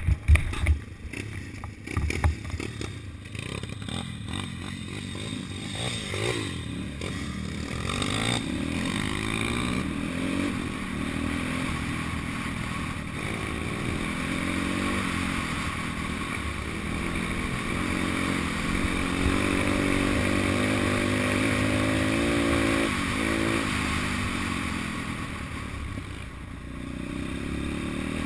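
Pit bike's small single-cylinder engine running on a bumpy dirt trail, its revs rising and falling as the rider changes gear. There are knocks and rattles from the bumps in the first couple of seconds.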